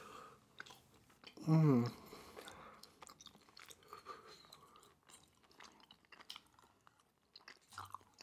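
Close-miked chewing of a mouthful of food: soft, wet mouth clicks and smacks, with one short voiced sound from the mouth about a second and a half in.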